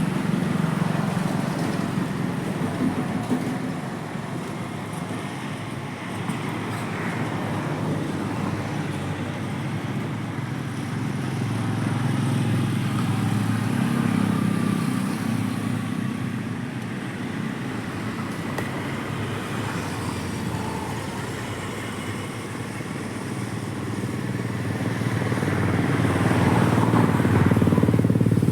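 Steady low rumble of road traffic, swelling and fading slowly as vehicles pass.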